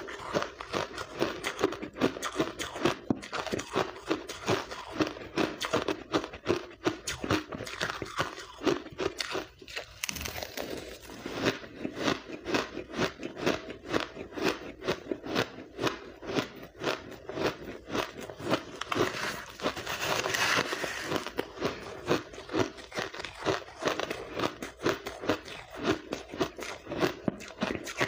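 Blender-crushed pink ice being bitten and chewed: a dense, continuous run of crisp crunches with every chew.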